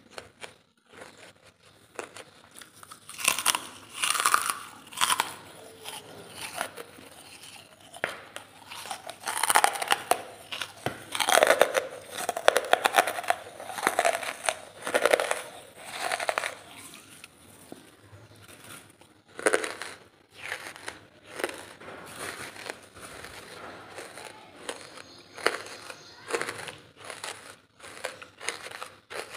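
Close-miked biting and chewing of lump charcoal: crisp, sharp crunches in clusters, with some crinkling of the plastic bag it is taken from.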